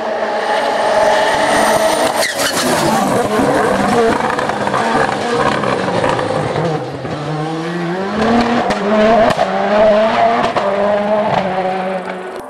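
Hill-climb race car engine at high revs going past, its pitch dropping as it slows and shifts down about seven seconds in, then climbing again as it accelerates hard away, with a sharp crack about two seconds in.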